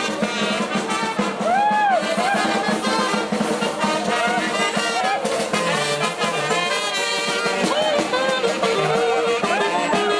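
Brass band music with trumpets and trombones, a melodic phrase swooping up and down about two seconds in and again near the end.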